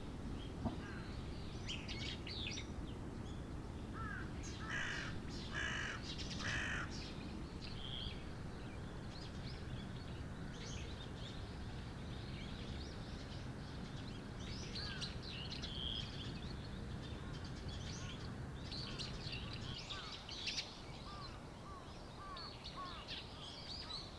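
Early-morning outdoor birdsong: scattered small birds chirping, with a crow cawing a few times about five seconds in, over a low steady background rumble.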